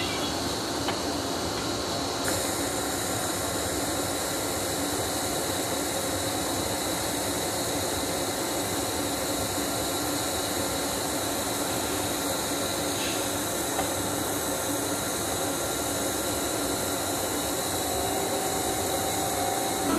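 A DART electric commuter train standing at the platform, giving off a steady hum and hiss.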